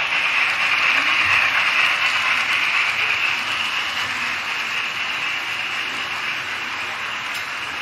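O scale model train running on the layout: a steady mechanical rattle of wheels and gearing on the track that slowly fades.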